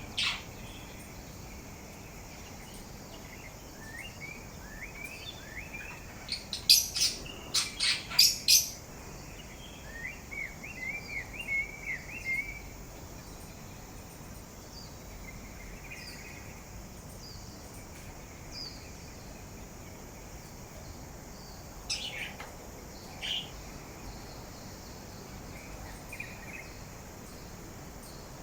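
A pet parrot softly warbling and chirping, with a run of four loud, sharp calls about seven to eight seconds in and two more loud calls in the last third.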